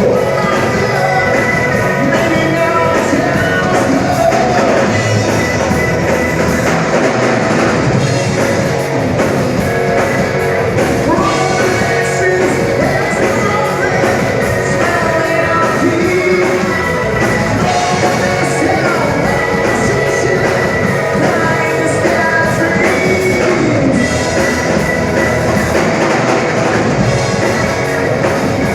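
Rock band playing live: loud rock music with a singer and drums.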